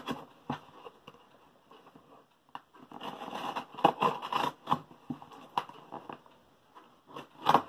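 A knife cutting open a parcel's packaging: irregular scrapes, rustles and crackles with sharp little clicks, busiest after a couple of seconds and again near the end.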